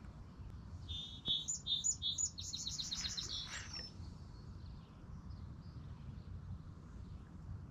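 A songbird sings one phrase about a second in: a few clear, paired notes, then a fast trill, ending about four seconds in. A low, steady rumble runs underneath, with a few faint bird notes later on.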